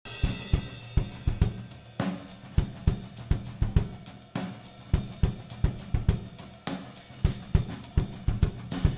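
Music: a drum kit playing a steady beat of kick drum, snare and cymbals.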